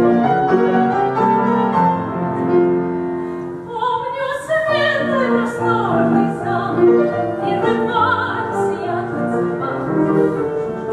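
A piano playing, joined about three and a half seconds in by a woman singing in a classical, operatic style with vibrato.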